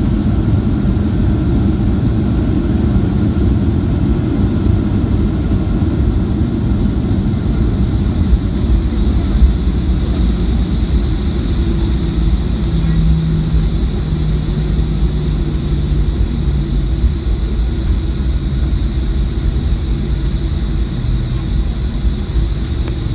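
Cabin noise of a Boeing 737-800 taxiing, heard from a seat beside the wing: its CFM56 engines run steadily under a constant low rumble.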